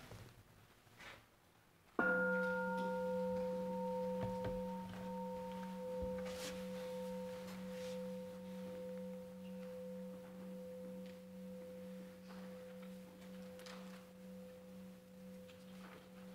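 A singing bowl struck once about two seconds in, marking the start of meditation. It rings on with a slow fade, its low hum wavering in a steady pulse, while a higher tone dies away within a couple of seconds.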